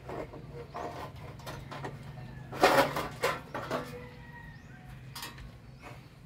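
Metal knocks, clicks and scrapes as a sheet-metal casing is pried off an old electronic unit with a screwdriver, scattered throughout, with a louder cluster of rattling knocks about two and a half seconds in.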